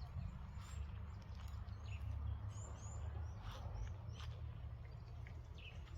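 Small birds chirping outdoors, a string of short rising calls, over a constant low rumble, with a few faint clicks such as footsteps.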